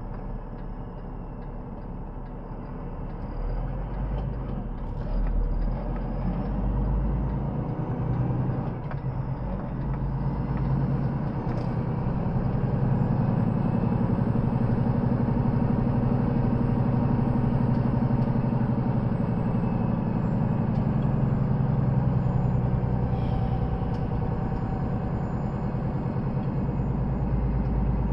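Semi truck's diesel engine running as the truck drives, heard from inside the cab; it grows louder about a third of the way in and then holds steady.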